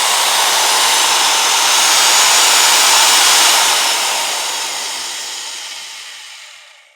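Power drill running in one continuous, steady, hissing whir. It dies away over the last few seconds and stops near the end.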